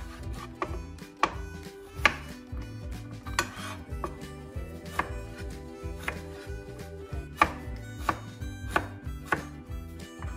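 Chef's knife cutting a raw potato on a plastic cutting board: a string of sharp knocks as the blade strikes through to the board, at an uneven pace of about one and a half a second.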